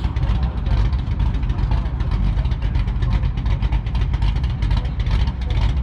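Plymouth Road Runner's 426 Hemi V8 running at low speed with a loud, uneven pulsing exhaust note, not being revved.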